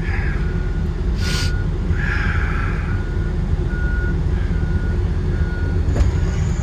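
Backup alarm beeping at one steady pitch, about one beep every three-quarters of a second, over the low, steady running of an engine. A short hiss comes about a second in.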